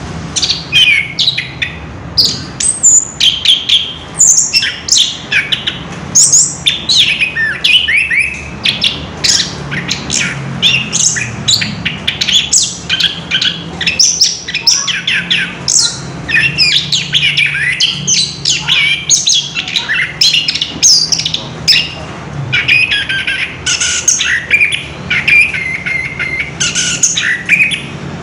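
Orange-headed thrush singing in a long unbroken run of rapid, varied high phrases with hardly a pause, the continuous rolling song ("ngerol") that keepers prize in this bird.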